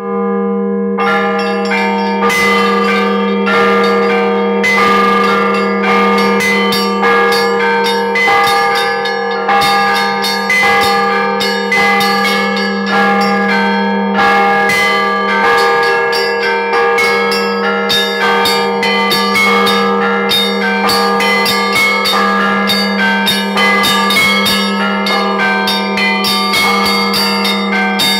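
Orthodox church bells rung together: a deep bell's tone holds underneath while smaller, higher bells are struck in quick, rhythmic succession.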